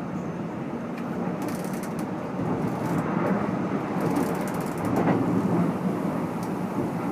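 Running noise heard inside the cabin of a Keikyu N1000 stainless EMU motor car, with Toyo IGBT VVVF inverter-driven MB-5121-A traction motors and wheels on rail, a car known for an unusually loud, odd motor noise. The noise grows louder from about two seconds in, with a few short clicks over it.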